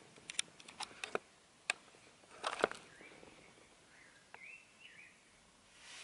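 A quick run of sharp clicks and knocks in the first few seconds, the loudest cluster about two and a half seconds in. A few faint bird chirps follow.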